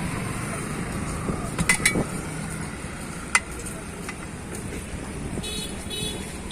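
Steady rumble of passing road traffic, with a few sharp clicks or knocks of hand work on the tyre about two and three and a half seconds in.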